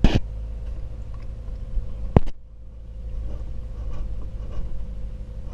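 Two sharp knocks from a fiber cement siding board being worked into place in the siding gauge clamps, one right at the start and a thinner click about two seconds in, over a steady low rumble.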